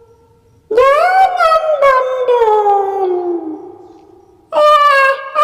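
Eerie long howling wails, made for a ghost-sound track. The first one rises briefly, then slides slowly down in pitch. A second wail begins near the end.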